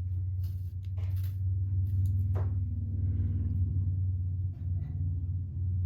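Steady low hum, with a short falling squeak about two and a half seconds in.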